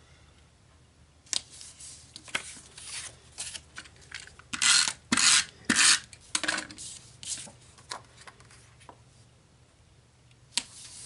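Paper and card stock being handled, slid and pressed on a scrapbook page, with three short rasping strokes of an adhesive tape runner around the middle.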